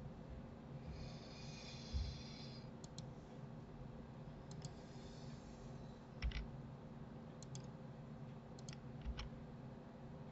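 Faint clicks of a computer mouse and keyboard during screen work, several as quick double clicks, with a few soft low thumps and a brief scratchy rasp about a second in.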